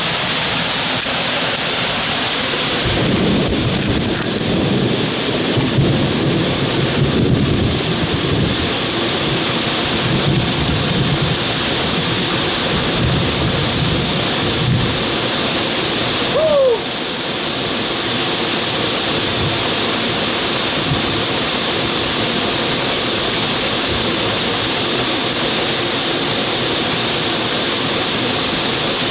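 Heavy tropical rain and a rushing waterfall making a steady loud hiss, with a long, uneven low rumble of thunder for the first half.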